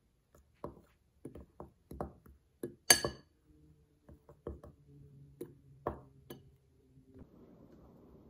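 Metal fork stirring flour in a glass bowl, giving irregular light taps and clinks of the fork against the glass, with one sharper clink about three seconds in.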